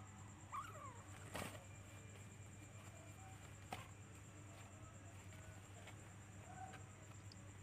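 Faint mews from a small domestic kitten, one about half a second in and a shorter one near the end. Two sharp clicks fall between them, over a low steady hum.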